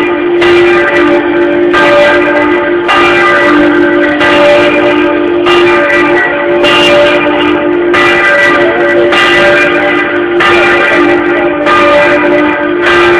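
A church bell rung a slancio, swinging freely in its tower, its clapper striking about once every second and a quarter. The bell rings on between strokes.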